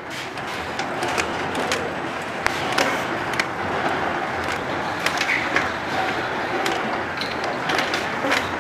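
Automatic rotary mineral-water bottle filling and capping machine running: a steady mechanical noise with frequent irregular sharp clicks and knocks from plastic bottles and moving parts.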